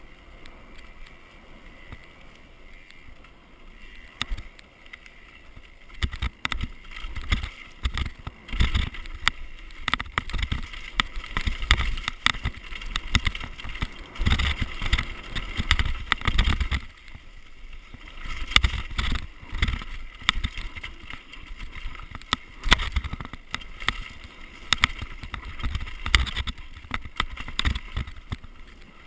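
Downhill mountain bike rolling fast over a rough dirt trail covered in dry leaves: steady tyre rush with frequent sharp knocks and rattles from the bike over bumps and roots. It is smoother for the first few seconds, then the knocks come thick and fast, easing briefly just past the halfway point.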